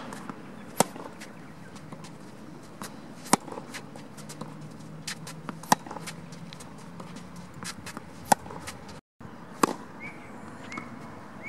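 Tennis racquet striking a tennis ball: a sharp, loud pop every two and a half seconds or so, with quieter hits and ball bounces between.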